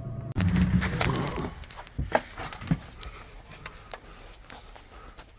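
A drink vending machine's steady running hum cuts off abruptly just after the start. A loud rumbling clatter follows for about a second, then scattered clicks and knocks.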